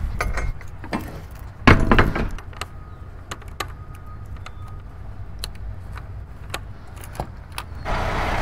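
Semi-trailer rear door hardware being locked by hand: metallic clicks and jingling from the lock handle, lock rod, chain and security seal, with one loud metal clank about two seconds in. A steady rushing noise comes in near the end.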